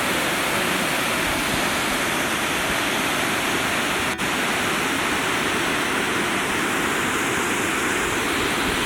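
Steady, even rushing noise, as of wind on the microphone or running water, with an instant's dropout about four seconds in.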